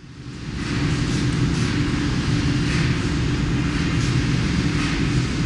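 Aircraft piston engine running steadily under test, fading in over the first second.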